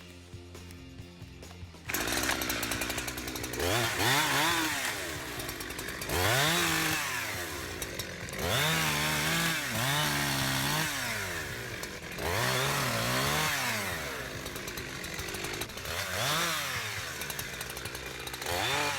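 Holzfforma G372XP two-stroke chainsaw running at full throttle while cutting, starting about two seconds in. Its pitch rises and drops again and again as the chain loads up in the wood and frees.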